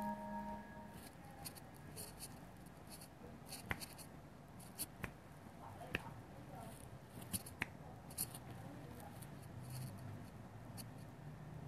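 Fingertips tapping a smartphone touchscreen while typing: faint, irregular clicks over quiet room tone.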